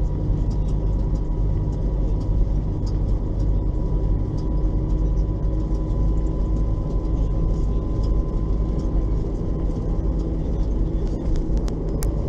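LAZ-699R bus's ZIL V8 petrol engine running steadily with a deep rumble and a faint steady whine. A few sharp ticks come near the end.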